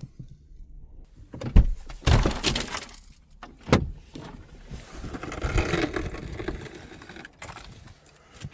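Van door being opened to get out: a sharp knock, a short rush of sliding, scraping noise, a second sharp knock, then a longer stretch of rustling noise.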